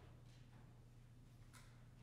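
Near silence: room tone with a steady low hum and a couple of faint, soft rustles.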